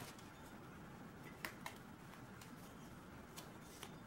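Near silence: room tone with a few faint, short clicks, the clearest about one and a half seconds in.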